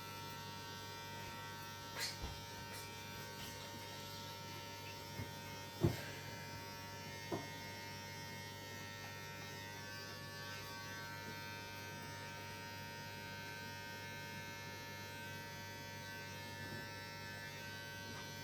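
Electric hair clippers running steadily during a haircut, with a few short knocks, the loudest about six seconds in.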